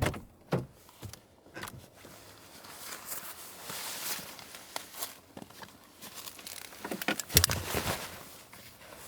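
Close rustling and crinkling with scattered clicks and knocks, with the loudest cluster of knocks about seven seconds in.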